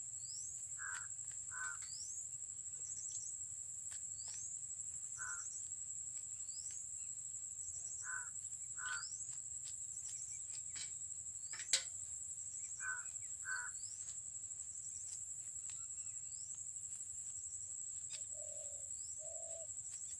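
Birds calling outdoors over a steady high-pitched insect drone. Short calls come in pairs every few seconds, with quick rising chirps about once a second and two lower calls near the end. A single sharp click comes about midway.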